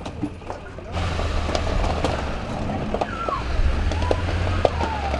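Pickup truck engine idling with a steady low rumble that comes in about a second in. A few short, high, gliding squeaks and clicks sound over it.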